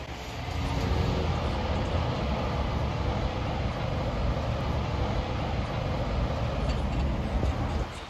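Steady rumble of heavy city street traffic, dropping away suddenly near the end.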